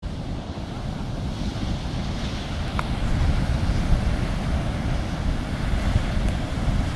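Atlantic Ocean surf breaking on a sandy beach, a steady wash of waves, with wind rumbling on the microphone.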